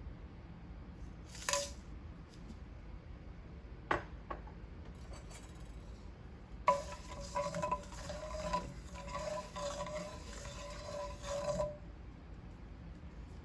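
A metal spoon knocking and scraping against a metal cooking pot: one ringing clink about a second and a half in, a light tap near four seconds, then about five seconds of continuous stirring with the pot ringing under the spoon.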